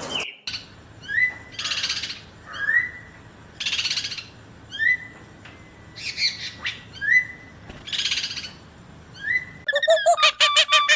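A bird calling over and over, about every two seconds: each call a short rising whistle followed by a hissy, raspy screech. Near the end a different call starts, a fast run of pulsed notes.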